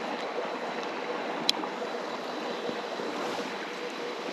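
Steady rush of a flowing stream, with a single sharp click about a second and a half in.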